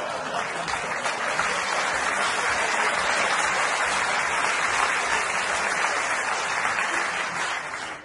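Live audience applauding a punchline with steady, dense clapping that thins out near the end.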